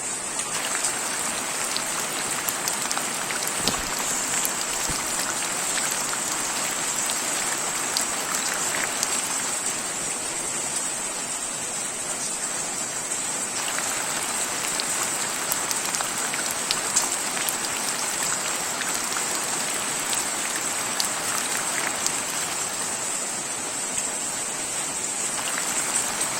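Steady rain falling, with many individual drops pattering on surfaces and a constant high hiss.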